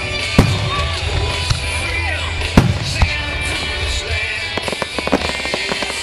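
Aerial fireworks shells bursting overhead: a few sharp booms, the loudest about two and a half seconds in, then a rapid run of crackling near the end, over music playing in the background.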